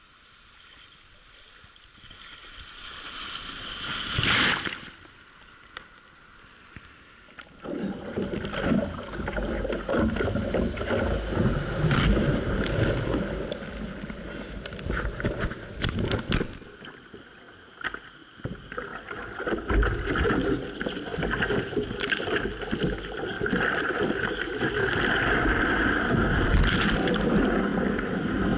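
Seawater splashing and churning over a waterproof action camera in breaking surf, with wind buffeting the microphone. It is quiet at first, with one sharp splash about four seconds in, then a loud continuous rush of whitewater from about eight seconds in.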